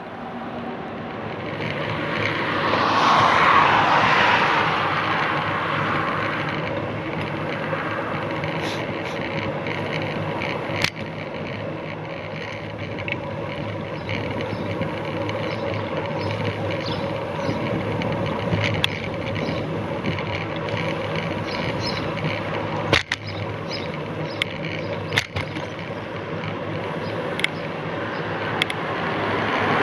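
Road traffic heard from a moving bicycle: a vehicle swells past a few seconds in and a lorry comes up loudly near the end, over steady riding noise with scattered short clicks.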